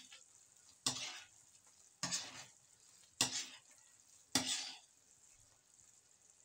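Metal spoon stirring a bubbling coconut milk and brown sugar mixture in a metal wok: four sweeping strokes about a second apart. Near the end the stirring stops, leaving only a faint simmer.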